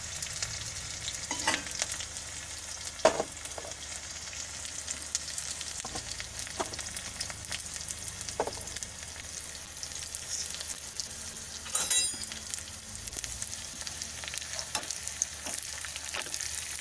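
Chopped onion sizzling steadily in hot oil with mustard seeds and cumin in a small tempering ladle, with a few sharp clicks and a brief louder crackle about twelve seconds in. Near the end a steel spoon stirs it.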